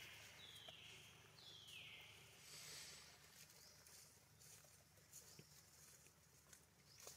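Faint high-pitched animal calls, two in the first three seconds, each holding and then sliding down in pitch, followed by scattered faint ticks.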